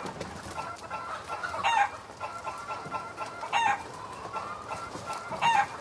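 A short pitched, animal-like call repeating in almost the same pattern three times, about every two seconds, like a looped sound effect, with lighter short notes in between.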